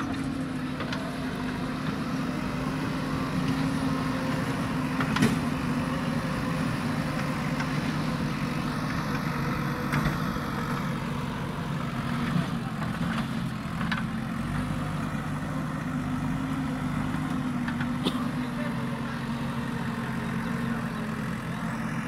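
JCB backhoe loader's diesel engine running steadily as the machine drives and turns, with a few sharp clanks scattered through.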